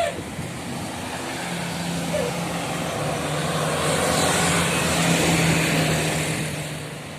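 Tour bus driving past with a steady low diesel drone, growing louder to a peak about five seconds in and fading away near the end.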